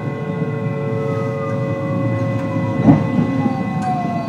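Hitachi IGBT-VVVF inverter and traction motors of a JR West 223 series electric train, heard on board over the rumble of the train running. Their whine falls slowly in pitch as the train slows under electric braking on the approach to a station. A single sharp knock comes about three seconds in.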